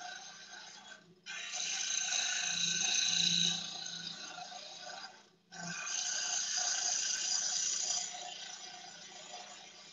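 Wood lathe motor humming steadily while a turning gouge, rolled on its side and used like a skew chisel, takes two slicing cuts on a spinning spindle blank. Each cut is a hiss of several seconds, with a short break between them about five seconds in.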